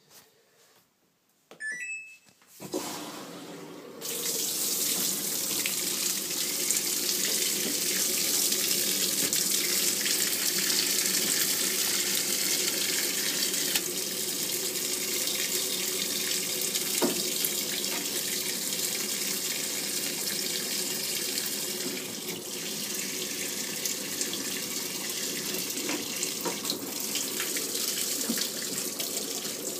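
Samsung top-load washing machine giving a few short beeps about two seconds in, then water starts rushing into the drum through the inlet about a second later and keeps running steadily as the machine fills for the wash.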